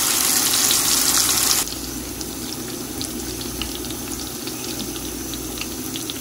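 Chicken drumsticks shallow-frying in hot oil in a pan: a steady sizzle with scattered pops and crackles. The sizzle drops to a quieter level about a second and a half in.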